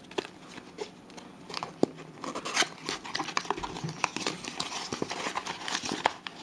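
Small white cardboard box being handled and its flap opened by hand: irregular light taps, scrapes and rustling of card.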